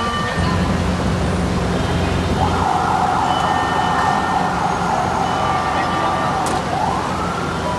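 An emergency vehicle siren starts about two seconds in with a fast warbling yelp, then slides up into a rising wail near the end, over a steady engine rumble.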